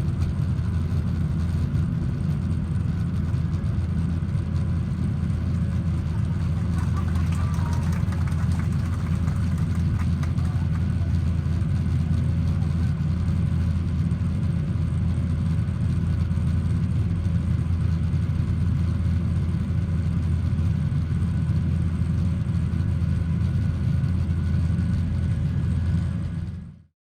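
Jet airliner cabin noise during the climb after takeoff: a steady, deep rumble of the engines and rushing air with faint steady tones in it. It fades out at the very end.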